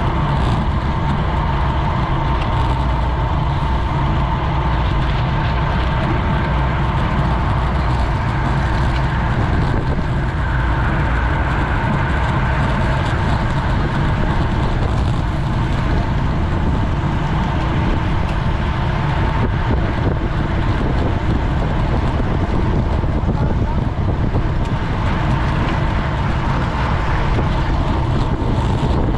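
Steady wind rush over an action camera's microphone mixed with tyre and road noise from a road racing bicycle at speed.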